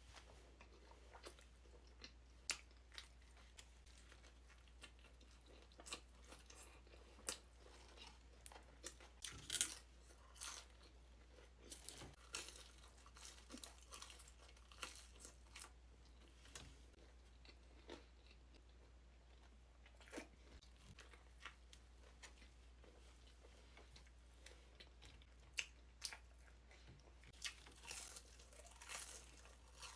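A person eating close to the microphone: scattered bites, crunches and mouth clicks of chewing, busiest around ten to fifteen seconds in and again near the end, over a faint low hum.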